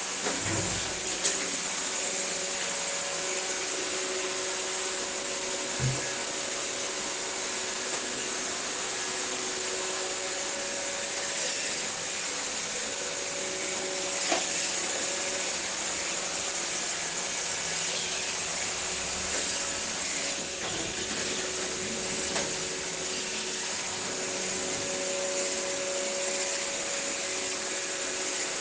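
Steady white noise: an even rushing hiss with a faint steady mechanical hum beneath it, broken only by a few light clicks.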